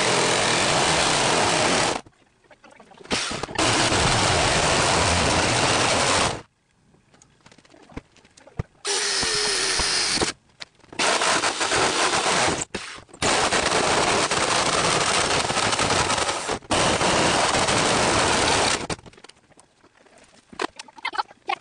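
Jigsaw cutting through the sheet-metal side of a school bus in about six runs of one to four seconds, with short pauses between them. It stops shortly before the end, leaving a few faint knocks.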